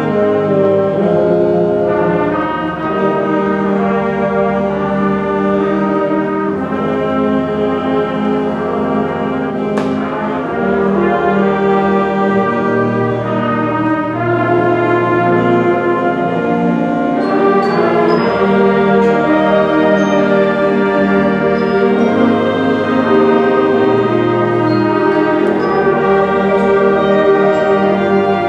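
Junior high concert band playing: sustained brass and woodwind chords that change every second or two, with one sharp percussion stroke about ten seconds in and high ringing notes joining past the middle.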